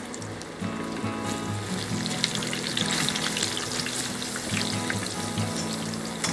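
Water boiling hard in a large pot, bubbling and crackling, with splashes as whole sugar apples are dropped in around the middle. Background music plays underneath.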